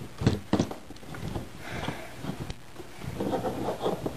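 Hard plastic action figures being handled on a tabletop: a few sharp knocks in the first second as they are moved, then softer rustling and light clicking as one is picked up and turned in the hand.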